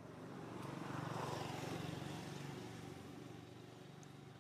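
A motor vehicle's engine passes by, swelling to a peak about a second in and then fading away.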